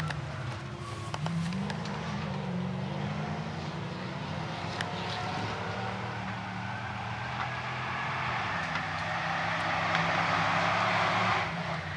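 Off-road racing 4x4's engine running hard at a distance, its note rising and falling as the driver works the throttle, getting a little louder near the end.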